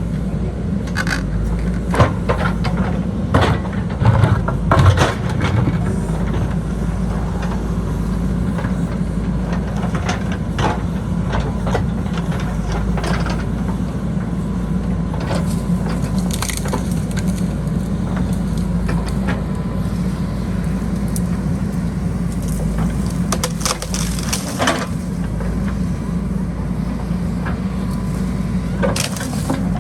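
JCB backhoe loader's diesel engine running steadily under load, with repeated cracking and crunching of soil and stones as the bucket scrapes and pushes dirt along the road. The crunches come in clusters, loudest in the first few seconds.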